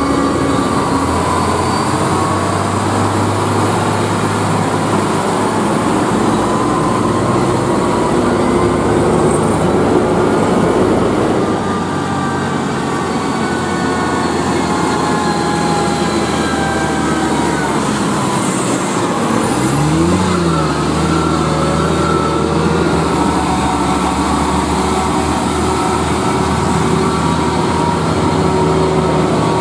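UD Quester heavy trucks' diesel engines running as the trucks pull along the road: first a GWE 370 with its GH11E engine, then GWE 280s with the GH8E. About two-thirds through, the engine note dips and then climbs again.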